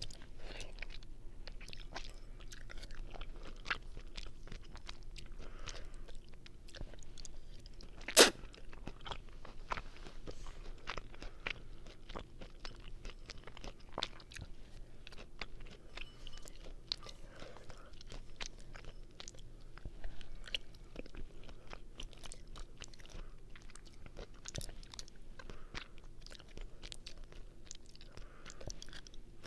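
Close-miked chewing of linguine carbonara: a steady run of small wet mouth clicks. About eight seconds in there is one much louder sharp click.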